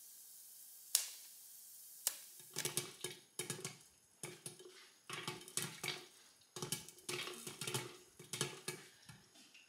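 Popcorn kernels popping in a hot oiled pan under a glass lid: a steady sizzle with a single pop about a second in, then from about two seconds on rapid clusters of pops that come in waves.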